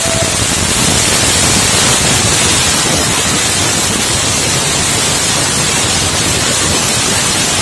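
Ground firework fountain (anar) spraying sparks with a steady, loud hiss.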